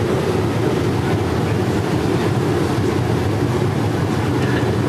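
Steady low rumble of an airliner's engines and rushing air, heard inside the passenger cabin.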